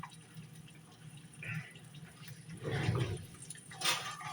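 Egg and English muffin frying in butter in a frying pan, a steady faint sizzle with a few brief louder sounds in the second half.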